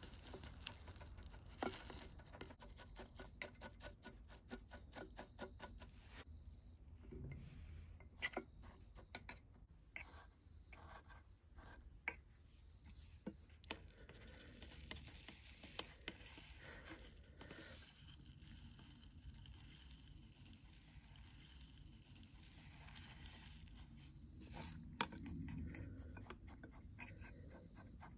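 Faint clicking and pattering of coarse, gravelly potting grit poured from a scoop into a small clay pot, the grains ticking against each other and the pot, with a soft trickling hiss partway through and a few sharper clicks near the end.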